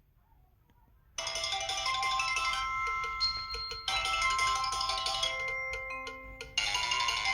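Samsung SPH-W7100 phone ringtone playing a melody of chime-like notes. It starts about a second in and moves into a new, busier passage near the end.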